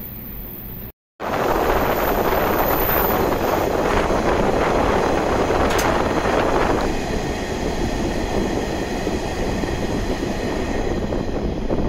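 JR 185 series electric train running at speed: a steady, even rolling noise of wheels and rushing air. Just under a second in there is a brief dead gap, after which the noise comes back louder.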